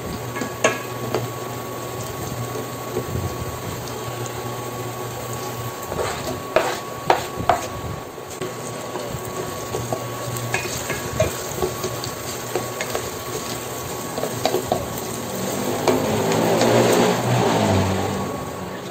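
Garlic and onion sizzling in hot oil in a stainless-steel pot while a wooden spatula stirs them, knocking against the pan a few times, clearest about six to seven and a half seconds in. A faint steady hum runs underneath, and a louder stretch with a few pitched notes comes near the end.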